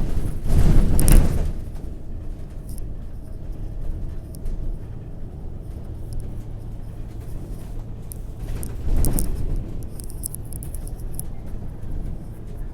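Motor vehicle noise: a steady low rumble, with louder swells about a second in and again about nine seconds in.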